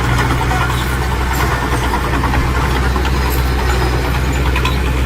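Heavy diesel engine of earthmoving equipment running steadily at low speed, a constant low hum.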